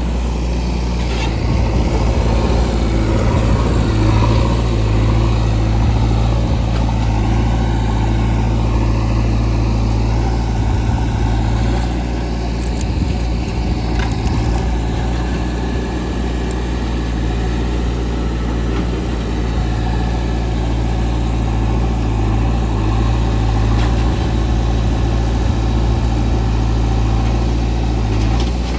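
Diesel engines of a JCB 3DX backhoe loader and a tractor running steadily as a loud, low drone while mud is loaded.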